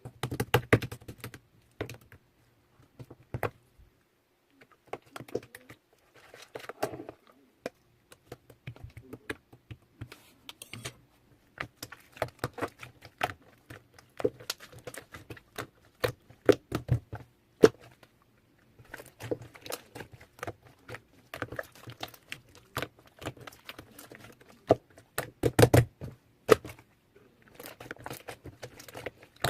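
Hands unpacking a parcel: irregular clicks, taps and knocks of items and plastic containers being handled, with crinkling and tearing of packaging, and a few short pauses.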